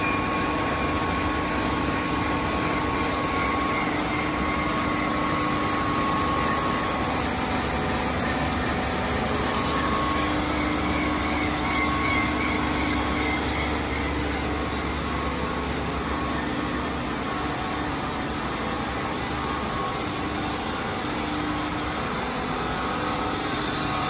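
Smith H200 centerless grinder running while a long steel bar feeds through it on the bar feeder's rollers: a steady machine drone with a low hum that drops out near the end.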